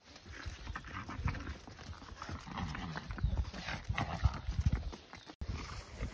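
Miniature horse's hooves clip-clopping on a paved stone path at a walk, an uneven run of knocks that cuts off abruptly about five seconds in.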